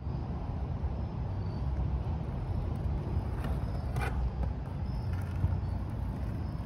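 Inline figure roller skate wheels rolling on plastic rink tiles, a steady rumble, with one sharp click about four seconds in.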